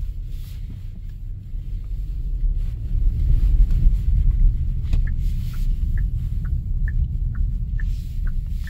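Low road and drivetrain rumble inside a moving Genesis GV80's cabin. About five seconds in, the turn signal starts ticking, a bit over two clicks a second.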